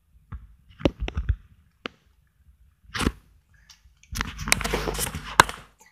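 Plastic toys being handled: a few scattered clicks and knocks, then a stretch of rustling and scraping with two sharp clicks near the end.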